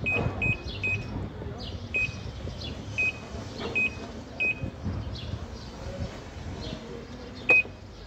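Top-load washing machine control panel beeping at each key press: seven short, high beeps as the programme button steps through the wash programmes, then a louder beep near the end as the start/pause button is pressed.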